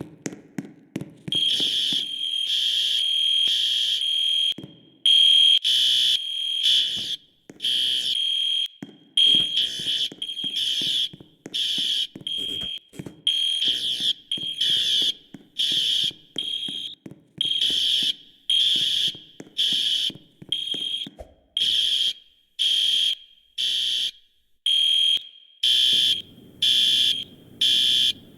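Building fire alarm horns sounding during a fire alarm test: a high, buzzy tone pulsing on and off about once a second, starting about a second in.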